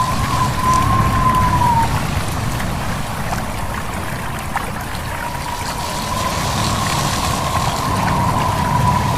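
Wind blowing steadily with a low rumble and a thin, wavering whistle that fades out about two seconds in and returns from about five seconds, over the trickle of a stream.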